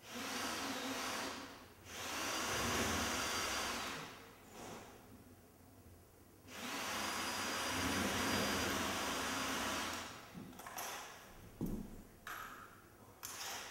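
Rushing, hissing noise that swells and dies away three times, each pass lasting a few seconds, followed near the end by a few short sharp clicks.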